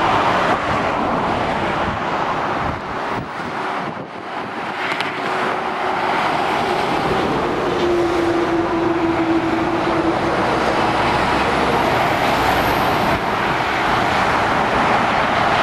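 Motorway traffic seen from above: lorries and cars passing, a steady rush of tyre and engine noise. It dips briefly about four seconds in, then swells again as more trucks go by.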